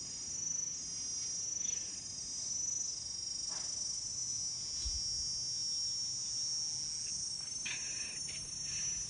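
Steady high-pitched chorus of insects, with a few faint knocks about a third of the way in and near the end.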